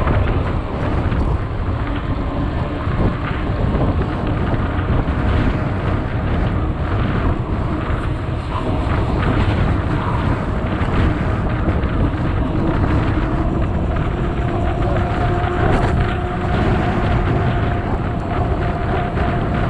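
Wind buffeting the microphone of an action camera carried on a moving mountain bike, a steady rush. A faint steady hum joins in about two-thirds of the way through.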